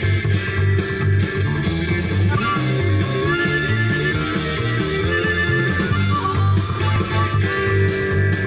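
Harmonica played with cupped hands over rock music with bass and guitar.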